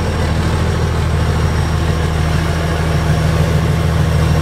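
Heavy diesel engine idling steadily, a deep even rumble that grows slightly louder near the end.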